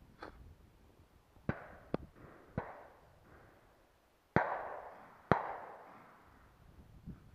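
Shotgun shots: three sharp reports within about a second, then the two loudest about a second apart, each trailing off in a long rolling echo.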